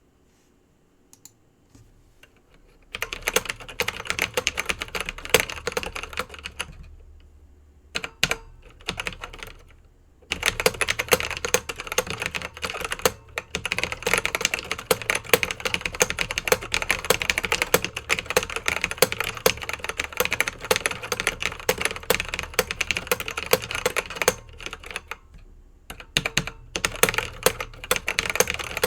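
Typing on an Ultratec Minicom's keyboard with Alps switches: fast runs of clacking keystrokes, with a few short pauses.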